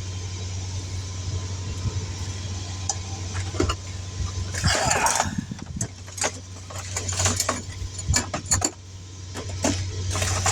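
A vehicle engine idling as a steady low hum, while tools and small items are handled and put away: a rustle about halfway through, then a run of clicks, clinks and light clatter.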